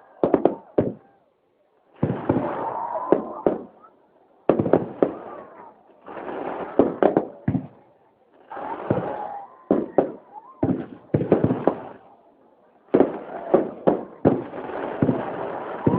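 Fireworks display: clusters of sharp bangs from bursting shells, several in quick succession each time, with a rumbling, crackling haze between them and short pauses between clusters.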